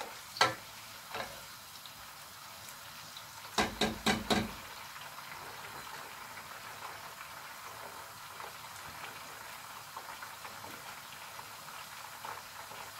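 Sliced onions frying in palm oil in a pot, a steady faint sizzle. The stirring spoon knocks against the pot once about half a second in and then in a quick run of knocks around four seconds in.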